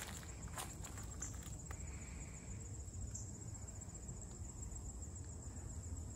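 Steady high-pitched insect trill, with a few crunching footsteps on leaf litter in the first couple of seconds.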